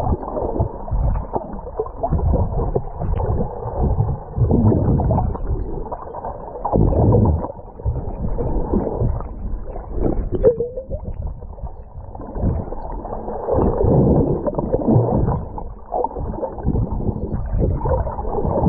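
Muffled seawater sloshing and gurgling around a GoPro in the sea, swelling and fading in irregular surges as the swimmer moves through the water.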